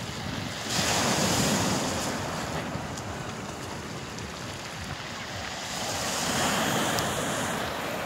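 Small sea waves breaking and washing over a pebble beach, surging twice, with wind buffeting the microphone.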